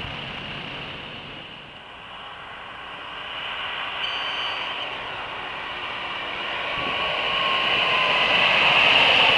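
Scania semi-truck with a curtain-sider trailer approaching along the road and passing close by. Its engine and tyre noise build steadily to their loudest near the end.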